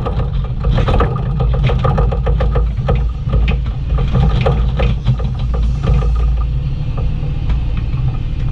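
Bobcat E35i compact excavator's diesel engine running steadily as the machine digs, with frequent clanks and knocks from the bucket and arm working stony soil. The knocks come thickest in the first few seconds.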